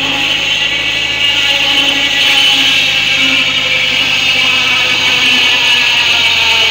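Tractor-driven circular saw bench cutting a log as it is pushed along the table: a loud, steady whine of the blade in the wood over the running tractor engine.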